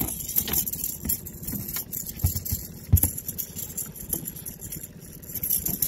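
A freshly landed striped bass flopping on a boat deck: irregular knocks and thumps, the loudest about three seconds in, over a steady hiss.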